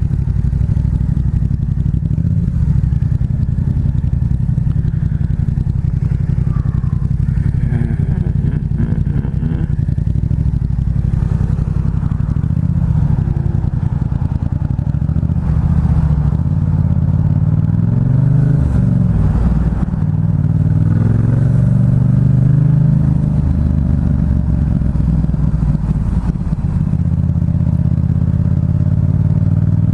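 Yamaha MT-07's parallel-twin engine running through a Black Widow aftermarket exhaust, heard from a mic inside the rider's helmet. Its pitch rises and falls several times as the throttle is opened and closed, with a sharp dip and climb about two-thirds of the way in.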